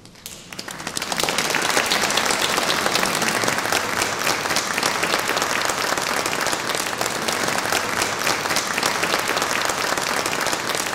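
Audience applauding as the orchestral music ends: the clapping starts about half a second in, swells quickly within the first second or so, and then holds steady.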